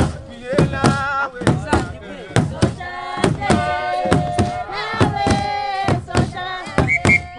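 Women's group singing a Swazi traditional song together, some notes held long, over a steady beat of sharp strikes about twice a second.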